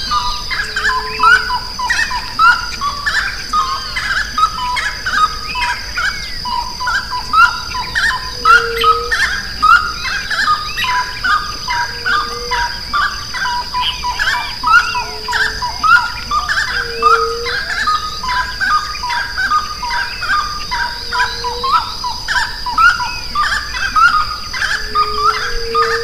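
Dense chorus of many wild birds chirping and whistling over one another in dry caatinga scrub, with a steady high-pitched drone throughout and a low, short hooting note repeating every few seconds.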